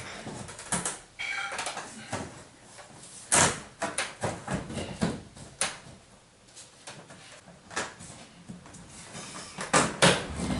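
PVC ceiling panel being pushed and slid into its edge molding by hand: scattered plastic clicks and knocks, with a brief squeak of plastic rubbing a second or so in.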